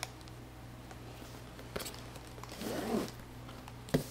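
Cardboard-and-plastic packaging being handled: a zipper-like rasp and rustle with a few sharp clicks, a loud knock near the end, and a short vocal sound about three seconds in.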